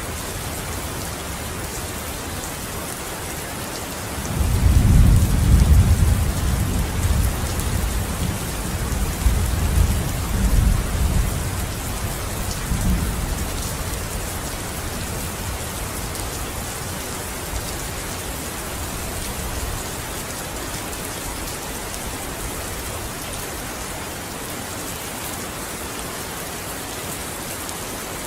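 Steady rain falling, with a roll of thunder about four seconds in: a deep rumble that swells several times and dies away over about fifteen seconds.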